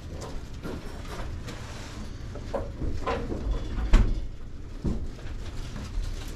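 Scattered knocks and light clatter of things being handled, with one sharper knock about four seconds in, over a low rumble.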